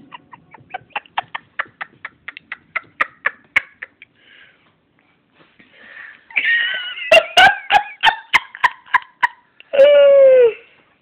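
A person laughing hard in quick, high-pitched bursts. After a short lull the laughter comes back louder, ending in a long falling squeal near the end.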